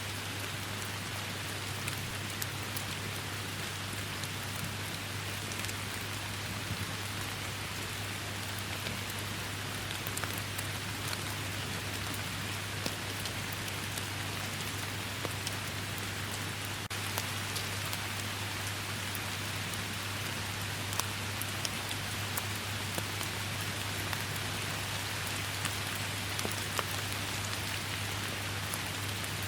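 Steady heavy rain, a constant hiss with scattered sharp hits of single drops.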